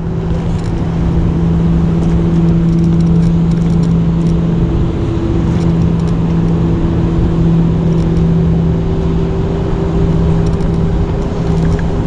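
Gyroor Urban Max C1 electric scooter's motor whining at a steady pitch while riding, creeping slightly higher over the last few seconds as it picks up speed, over loud wind buffeting the microphone and tyre rumble.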